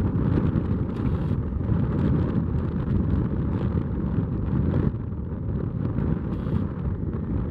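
Wind buffeting the microphone: a loud, gusty low rumble that rises and falls throughout.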